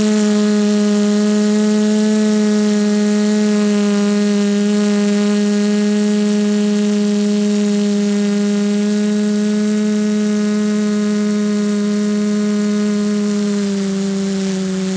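TBS Discovery quadcopter's brushless motors and propellers at steady cruising throttle, a loud, even buzzing hum picked up by the GoPro on the frame. Near the end the pitch and loudness dip slightly as the throttle eases.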